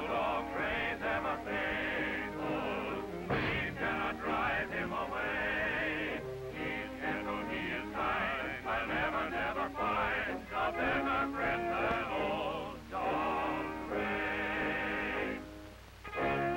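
Music from an early-1930s cartoon soundtrack: a busy score with a wavering melody over shifting chords, dipping briefly near the end.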